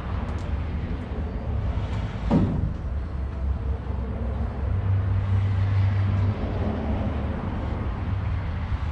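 An engine running steadily with a low hum, and a single knock about two and a half seconds in.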